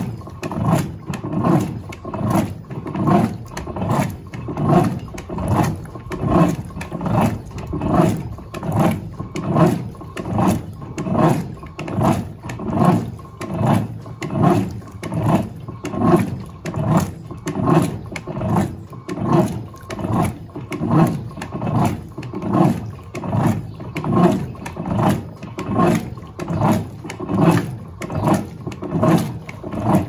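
Electrolux Turbo Acqua Jet 15.2 kg direct-drive top-loading washing machine in its agitation stage: the agitator reverses back and forth in rhythm, a little more than once a second, each stroke a sloshing swish of soapy water and laundry.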